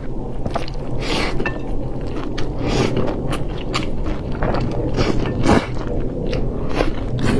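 A person eating close to the microphone: chewing and biting, with many sharp clicks and smacks and a few louder bites, over a steady low rumble.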